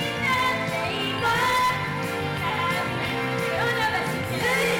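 Japanese idol pop song performed live: female vocals sung into microphones over a pop backing track.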